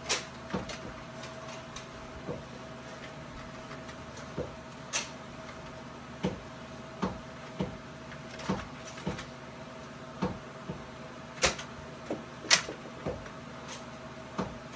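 Scattered sharp plastic clicks and knocks from a Nerf blaster being handled and loaded with a dart, about one every second, with two louder snaps near the end.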